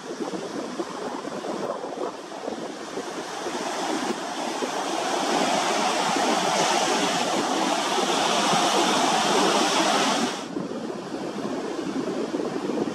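Sea surf washing on a beach, with wind on the microphone. The rush swells louder from about four seconds in and drops back suddenly at about ten seconds.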